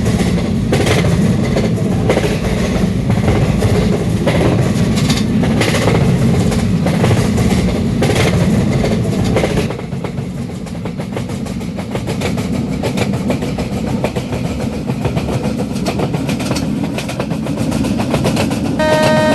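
Train running on the rails with a steady rumble and wheels clicking over rail joints; the noise drops to a quieter, smoother run about ten seconds in. Just before the end a steady pitched tone with overtones starts.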